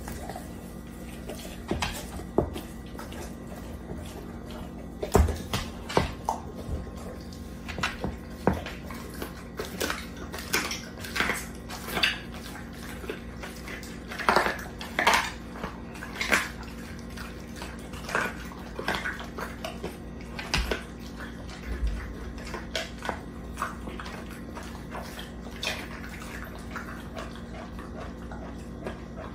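Dog chewing and tearing at a whole raw chicken: irregular wet crunches and smacks, some sharp and loud, over a faint steady hum.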